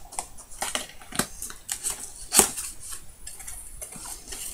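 A long cardboard box being handled and its end torn open by hand: irregular clicks, taps and scrapes, the loudest a sharp knock about two and a half seconds in.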